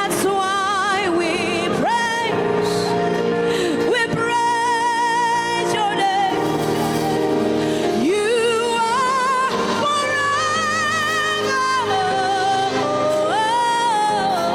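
Gospel worship music: a solo voice, most likely a woman's, sings long held notes with strong vibrato and sliding pitch over steady sustained backing chords.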